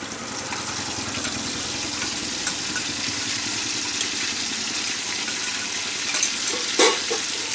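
Wet spice paste (turmeric, cumin, mustard, ginger, radhuni) sizzling steadily in hot mustard oil in a kadai, just added to the tempering, the first stage of frying the masala. One sharp knock near the end.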